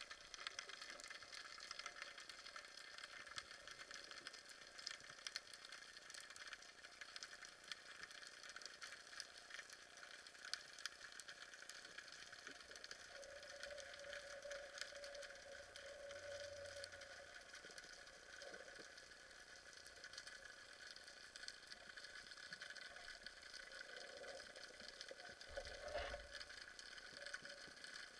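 Faint underwater ambience picked up through a camera's waterproof housing: a steady quiet hum with fine crackling ticks throughout, and a brief soft rumble about 26 seconds in.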